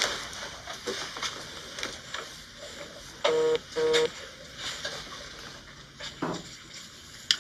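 Two short electronic beeps, back to back about three seconds in, each a single steady tone, over faint room noise with a few light clicks.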